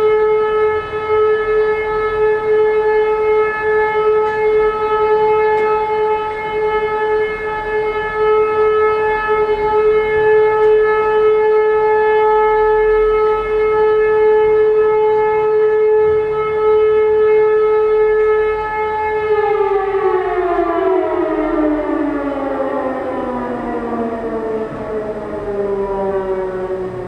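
E57 electro-mechanical civil-defence siren holding a steady, loud tone, then, about two-thirds of the way through, winding down with its pitch falling steadily as the rotor spins down.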